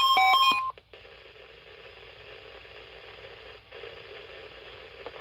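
Electronic alert beeps from weather-alert radios mixed with the steady NOAA Weather Radio warning alarm tone, all cutting off sharply under a second in, at the end of the weekly test alert. Faint radio hiss follows.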